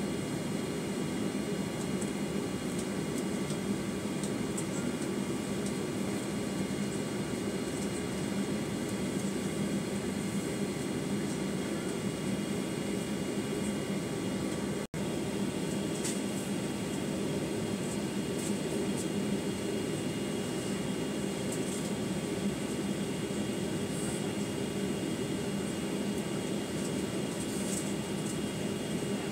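Steady cabin hum of a Boeing 737-900ER waiting on the ramp with its CFM56-7B engines at idle and the cabin air running, a low rushing noise with thin steady whines above it. The sound drops out for an instant about halfway.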